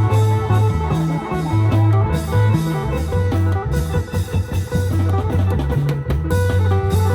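Loud klong yao band music: an electric guitar melody over shifting bass notes and drums.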